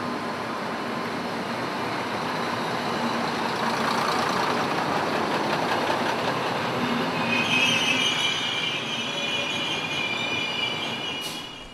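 ALn 668 diesel railcar rolling past close by, its wheels rumbling over the track. From about seven seconds in there is a steady high wheel squeal, and it all fades near the end.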